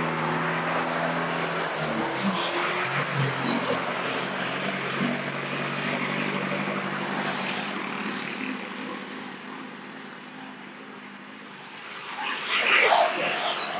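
Traffic passing close by on a bridge deck. A motorbike engine hum fades away in the first couple of seconds, cars go by with steady tyre and engine noise, and there is a louder pass near the end.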